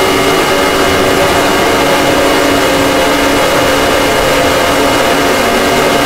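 Emergency-alert-style alarm sound, harsh and loud: a dense hissing noise with several steady tones layered on it, some of the lower tones dropping out about halfway.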